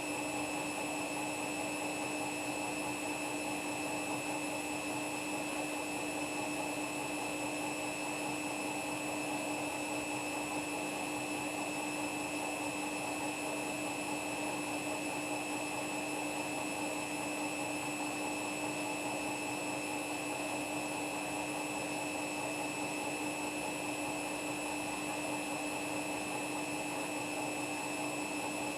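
Washing machine spinning at a steady high speed: an even motor whine with a low hum over a constant rushing noise.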